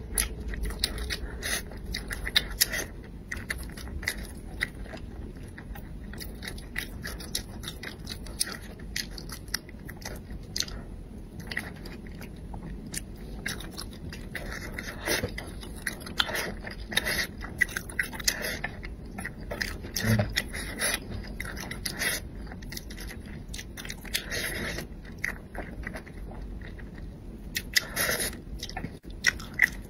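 Close-miked eating of spicy braised crucian carp: irregular chewing and lip-smacking mixed with chopsticks scraping and tapping against the tray as fish meat is picked from the bones.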